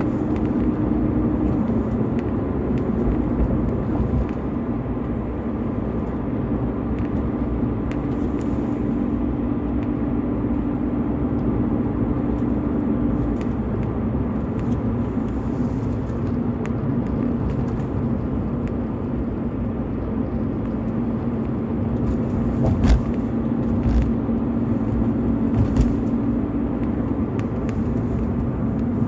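BMW E46 320i's stock 2.0-litre M52TU inline-six running steadily over a low rumble, its engine note stepping down slightly about halfway through. A few sharp knocks come near the end.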